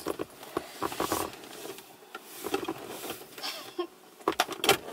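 Lip-smacking kisses: a run of short, sharp smacks, loudest near the end, with clothes rustling between them.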